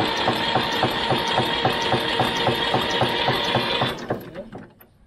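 Escorts tractor's three-cylinder diesel engine being cranked by its electric starter motor: a starter whine with a fast even knocking of the compression strokes, turning over without firing, then the cranking stops about four seconds in. The crew puts the failure to start down to diesel not reaching the injectors.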